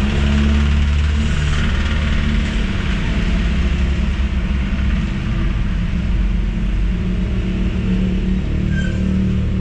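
Toyota Avanza's dual VVT-i engine running steadily with a low rumble, heard from inside the cabin. The engine is down on power with no check-engine light, which the mechanic suspects is a choked exhaust from a clogged catalytic converter.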